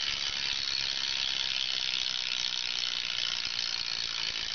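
Rear hub of a Specialized P20 BMX bike ratcheting as the wheel spins freely, its pawls clicking so fast they make a steady buzz, not too loud.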